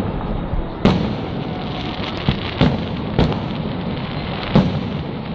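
Aerial fireworks exploding: five sharp bangs at irregular intervals over a steady, dense rumble and crackle of further bursts.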